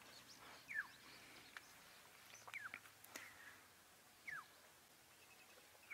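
Faint outdoor quiet with a bird giving a short downward-slurred whistle four times, two of them close together, and a single faint click a little past the middle.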